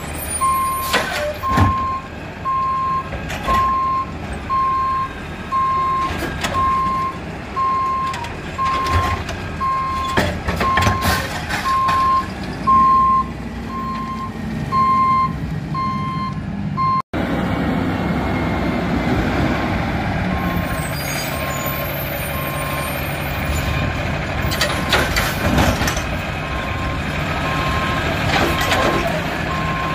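Peterbilt 320 garbage truck with a Wayne Curbtender body running, its backup beeper sounding about once a second along with scattered clanks and knocks. The uploader explains the beeper by the truck sensing its tailgate as open with the body nearly full. About halfway through, the engine comes up louder and rises in pitch while the beeping goes on more faintly.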